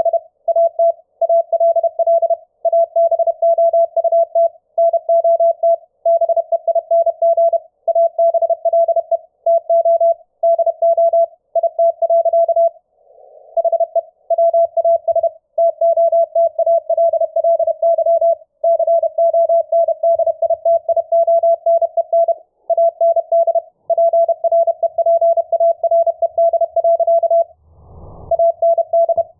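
Morse code (CW) as a single mid-pitched tone keyed on and off quickly in word-length groups, received over Mumble voice chat and played through SDR#'s AGC and CW bandpass filter. A brief low thump comes near the end.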